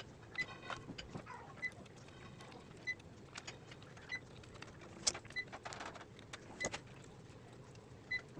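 A short, high electronic beep repeating evenly about every second and a quarter. Between the beeps come small clicks and scrapes from handwork on wires and terminals at a switchboard, the loudest about five seconds in and again a little later.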